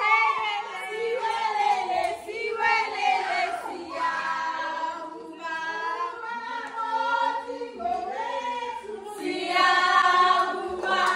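Background song: several voices singing a melody together in a choir-like blend, with no speech over it.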